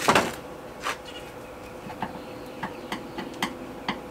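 A flathead screwdriver chipping and scraping old Wetlander coating off a riveted aluminium jon boat hull: a louder scrape right at the start, then short, sharp, irregular scrapes and clicks, about one every half second. A steady faint hum runs underneath.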